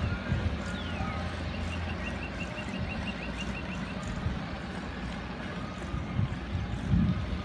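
Wind buffeting the microphone and road rumble from a bicycle riding along asphalt, with a quick run of about a dozen faint high pips near the middle.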